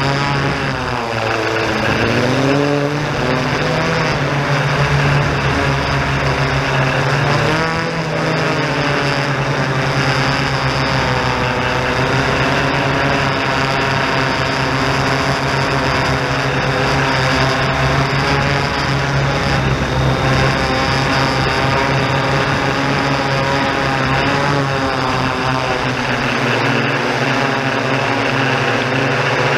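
Yuneec Typhoon G quadcopter's electric motors and propellers buzzing in flight, at a steady pitch apart from a dip and rise in pitch a second or two in and another shift about eight seconds in, as the throttle changes.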